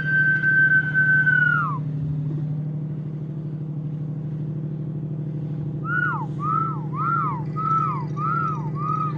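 A man whistling: one long held whistle that drops in pitch at its end, then, after a pause, a run of short rising-and-falling whistles at about one and a half a second. Underneath is the steady low drone of a cargo ship's engine.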